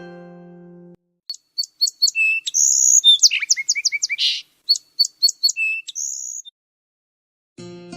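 A plucked-string note fades out, then about five seconds of quick, high bird chirps and short trills follow. Another plucked-string note sounds near the end.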